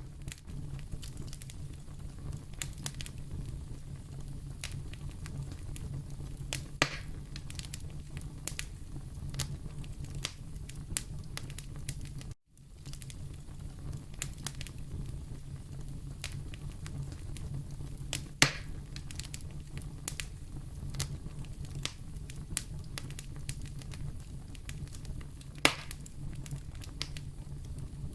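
Wood fire burning in a fireplace: a steady low rumble with frequent small crackles and three louder pops spread through. The sound cuts out for an instant about halfway through.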